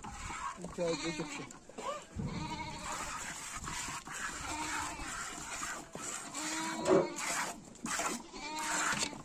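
Several domestic goats bleating, one call after another at different pitches.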